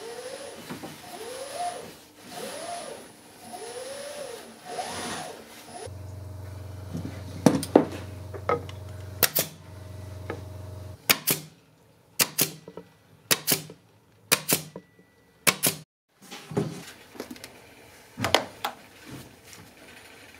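Upholstery work on a wooden chair seat with jute webbing. It starts with a run of short rising-and-falling squeaks about once a second, and from about six seconds in gives way to irregular sharp clicks and knocks.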